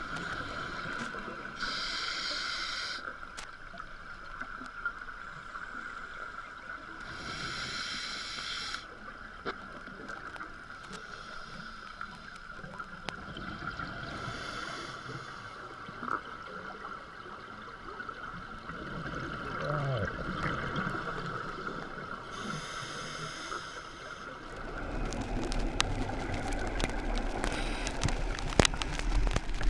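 Scuba diver breathing underwater: bursts of exhaled bubbles from the regulator about every six seconds over a steady hum, with a louder low rumbling over the last few seconds.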